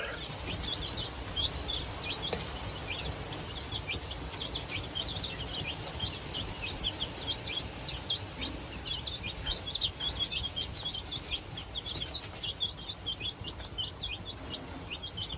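A brood of olive egger chicks, a few weeks old, peeping: many short, high peeps overlapping without a break.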